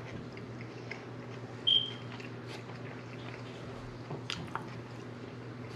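Close-up eating sounds: quiet chewing and small wet squishes and ticks of fingers handling soft corn-tortilla tacos, over a steady low hum. One short high squeak comes just under two seconds in and is the loudest sound.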